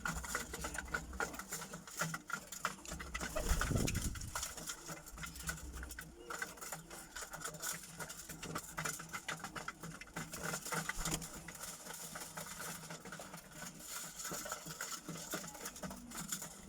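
Birmingham roller pigeons shuffling and rustling in a loft, with many small scratches and clicks. A low rumble comes about four seconds in.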